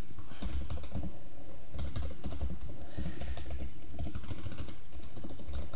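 Typing on a computer keyboard: a run of irregular keystroke clicks, over a steady low background hum.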